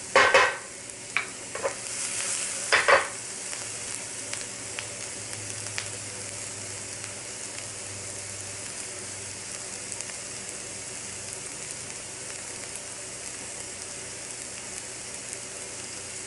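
Chopped onion and garlic sizzling in oil in a nonstick frying pan over low heat. For the first three seconds a wooden spatula scrapes and taps through them several times; after that there is only a steady, even sizzle.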